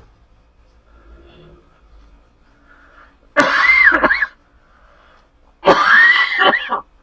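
A man sneezing loudly twice, about two seconds apart, each sneeze a sudden burst of about a second with a vocal cry that rises and falls: a sneezing fit just after a deep nasal swab.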